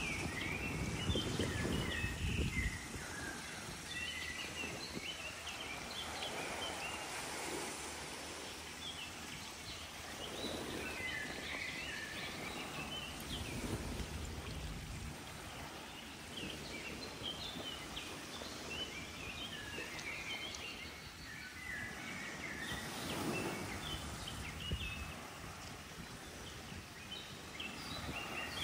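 Outdoor nature ambience: birds chirping in short repeated phrases throughout, over a low rushing wash that swells and fades every few seconds.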